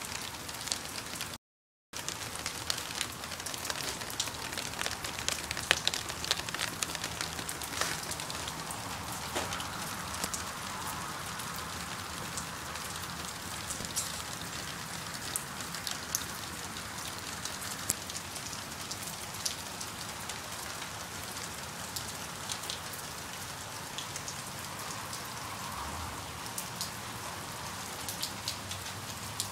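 Steady light-to-medium rain falling: a constant hiss with many individual drops ticking. The sound cuts out completely for a split second about a second and a half in.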